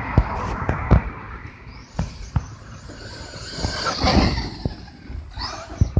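Electric RC truggy (Team Associated RC8 on a 4S LiPo) driving across grass, its motor whine rising in pitch as it speeds up about four seconds in and dropping near the end. Several sharp pops and knocks are spread through it.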